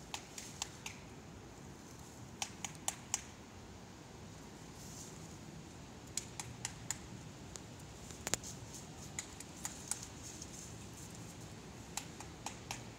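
Sharp tongue clicks in quick runs of three or four, repeated every few seconds, as a clicking call to summon chickens.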